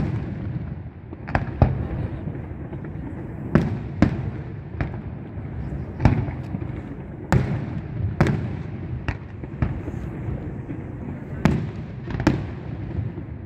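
Aerial fireworks shells bursting: about a dozen sharp bangs at uneven intervals, some followed by a short echo, over a steady low background noise.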